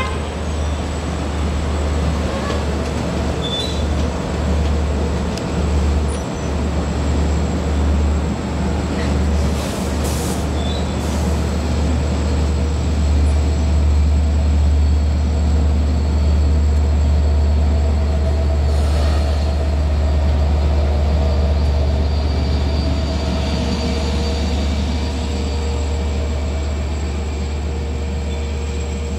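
Long Island Rail Road diesel passenger train at the station, running with a loud, steady low drone and a few steady higher tones above it.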